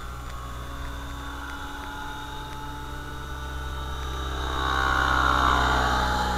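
Electric T-Rex 600 ESP model helicopter in flight: steady rotor and drive whine with a low hum underneath. It grows louder from about four seconds in, peaks, then fades slightly as the helicopter passes closer.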